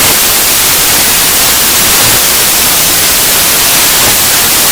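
Loud, even static hiss, strongest in the treble, that cuts off abruptly into dead silence at the very end: an audio fault in the recording feed rather than any sound in the room.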